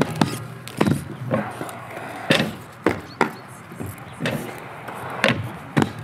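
Aggressive inline skates with Oysi Medium frames rolling on concrete, with a string of sharp, irregular clacks about every half second to second as the skates strike the ground.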